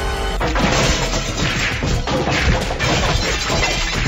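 Cartoon fight sound effects: a dense run of crashing and smacking hits over background music, starting about half a second in.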